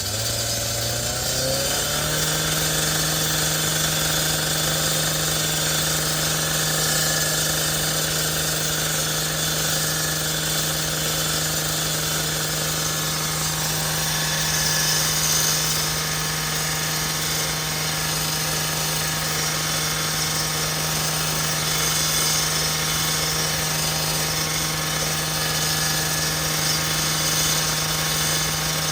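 An engine revs up over the first two seconds, then runs at a steady speed with a constant hum.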